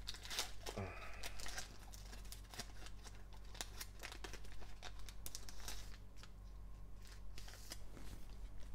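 Foil trading-card pack wrapper tearing and crinkling as gloved hands open it, a dense crackle for about six seconds that thins to a few scattered crinkles near the end.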